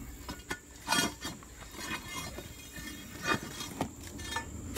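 Steel pry bar clinking and knocking against broken chunks of rock, a string of sharp strikes and scrapes, the loudest about a second in.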